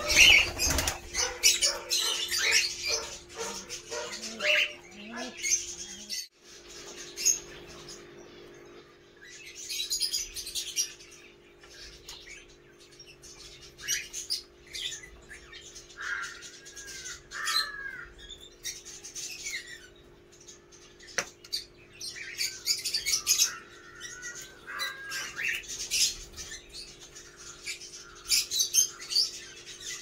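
A flock of cockatiels and ringneck parakeets chirping and calling in repeated clusters, with a few short rising-and-falling whistles. A flurry of wing flaps comes right at the start, and a steady low hum runs underneath.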